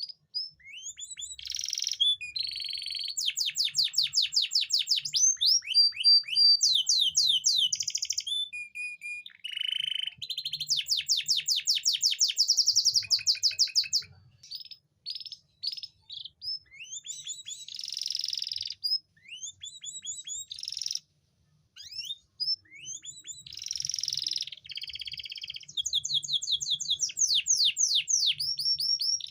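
Male domestic canary singing a long courtship song of fast trills, each made of rapidly repeated sweeping notes, changing from one trill to the next and breaking off briefly twice in the middle. It is the kind of song used as a lure to bring hen canaries into breeding condition.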